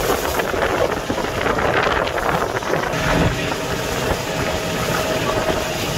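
Boat engine running under way, with wind buffeting the microphone. About halfway through, a faint steady whine comes in.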